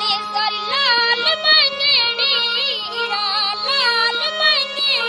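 A high-pitched voice singing an ornamented, wavering melody over a steady low drone.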